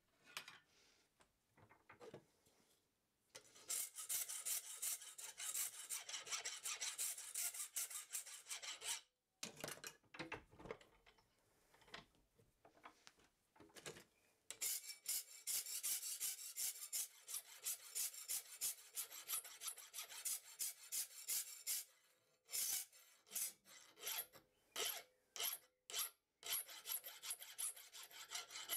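Hand file rasping over the steel of a reciprocating saw blade clamped in a vise, shaping it into a knife blade. After a few quiet seconds with light clicks come long runs of quick file strokes, broken by short pauses and a few single strokes.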